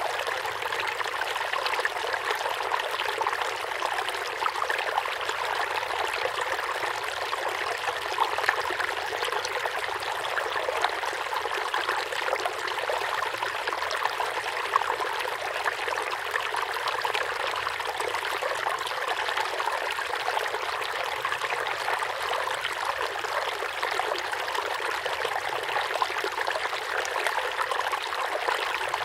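Water splashing and trickling steadily into the surface of a fish tub.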